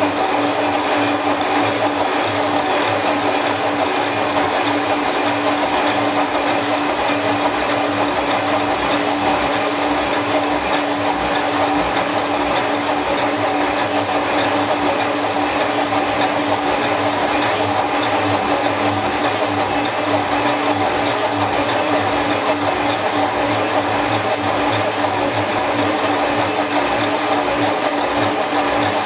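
Two-face turning lathe running steadily, its two opposed motor-driven cutter heads facing the flanges of a cast valve body at both ends at once. The noise is a constant mechanical drone with a steady hum and whine.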